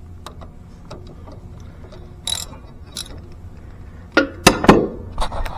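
Socket ratchet on an extension with a 3/8 hex bit, ticking as it loosens a hex-head fill cap on a hydrostatic wheel-motor unit. A few sharp metallic clacks come near the end as the tool knocks against the metal.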